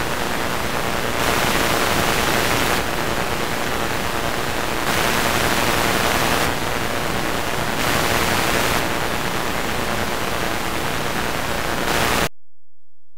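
Loud hiss of static from a videotape played back past the end of its recording, the level stepping up and down every couple of seconds. It cuts off suddenly near the end.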